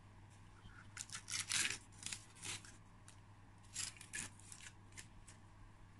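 Two quick runs of short, crisp scraping sounds, the first about a second in, the second about four seconds in.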